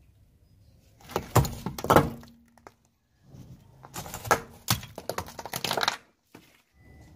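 Car tyre crushing a glitter-coated clay object filled with coins: cracks and crunches in two bunches, the first about a second in and the second from about three seconds in.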